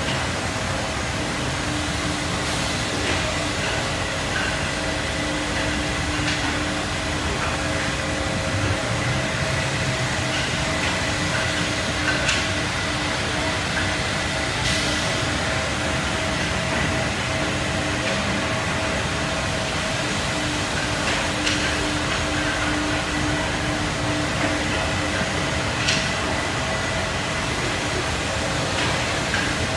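Steady hum of running woodworking machinery in a large hall: a CNC nesting router's spindle and its dust extraction, with a few faint clicks and knocks scattered through it.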